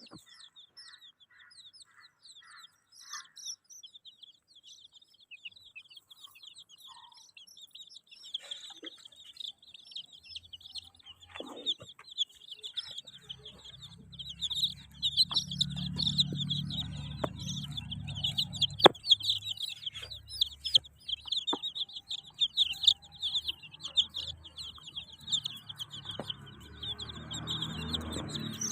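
A group of baby chicks peeping, many rapid high cheeps overlapping, sparse at first and becoming a dense continuous chorus about a third of the way in. Under them, from about halfway, runs a low rumble with a few sharp knocks.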